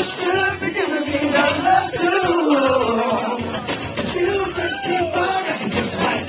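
A man singing into a handheld microphone, amplified through the room's sound system, in long, sliding notes.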